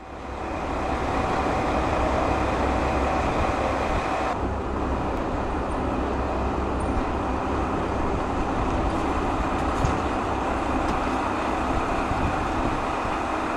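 Sanriku Railway diesel railcar, its engine idling with a steady low rumble. A high steady tone over it cuts off abruptly about four seconds in.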